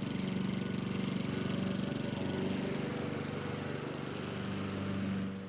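Walk-behind gasoline lawn mower's small engine running steadily at an even pitch.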